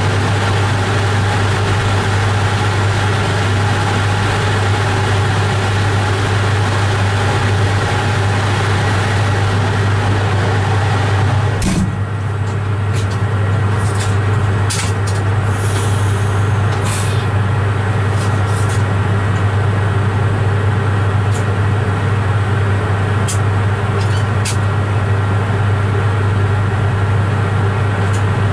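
Steady low machine hum inside a train's driving cab, with several steady tones above it. About twelve seconds in there is a click and the sound changes, followed by a scattered series of short, sharp clicks.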